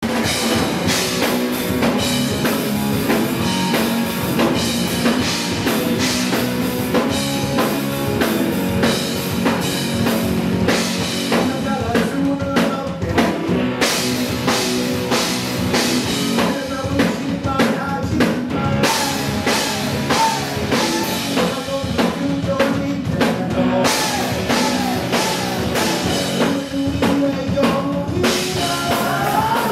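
Rock band playing live: electric guitar, bass guitar and drum kit, loud and steady.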